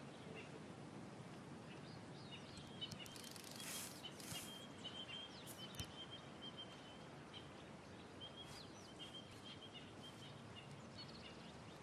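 Faint natural bush ambience: small birds chirping repeatedly in short, high calls over a soft, steady background hiss, with two brief hisses about four seconds in.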